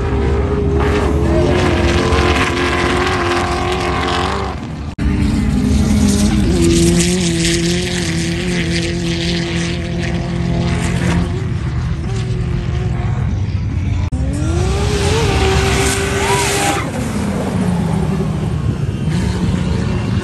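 Off-road racing vehicles' engines running hard at high revs, the pitch holding and then climbing as they accelerate down the sand, with bursts of hiss. The sound breaks off abruptly about five seconds in, then resumes.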